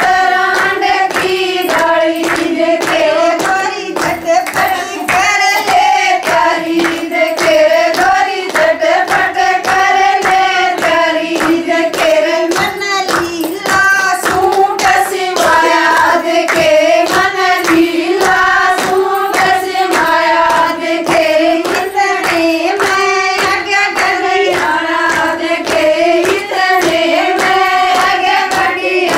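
Women singing a Haryanvi folk song, accompanied by steady, rhythmic handclapping.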